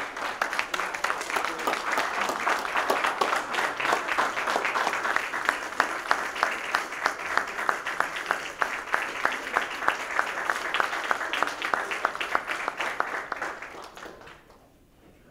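A roomful of people applauding, with one nearby pair of hands clapping steadily above the rest at about three or four claps a second. The applause dies away about a second before the end.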